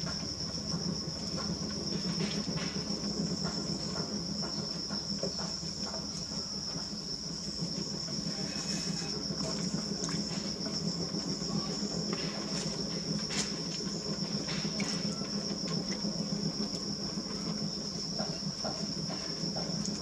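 Potter's wheel turning steadily under a large clay jar being thrown by hand, with a steady low hum and a constant high-pitched whine, and faint scattered clicks.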